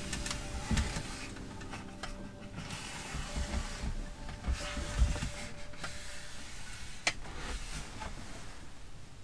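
A tissue rubbed over a wooden tabletop, a dry scratchy wiping, with a couple of soft thumps and a sharp click about seven seconds in.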